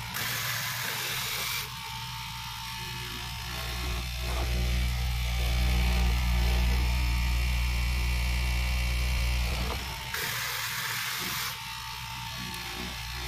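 Electric straight-knife fabric cutting machine running with a steady motor buzz while its upright reciprocating blade cuts down through a thick stack of layered fabric. The hum grows louder from about four seconds in until about ten seconds in.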